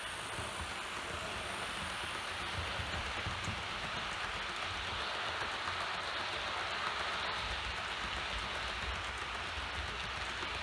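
Roco model freight train rolling past close by on its track: a steady rolling, rushing noise from the locomotive and the wagons' wheels.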